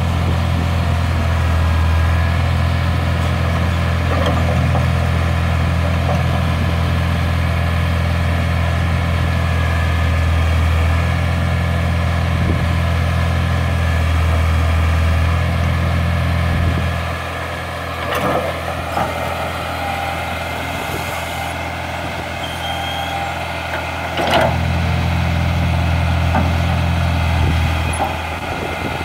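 Caterpillar 943 track loader's diesel engine running steadily under work, easing off a little past halfway and picking back up a few seconds before the end, with a couple of short metal clanks.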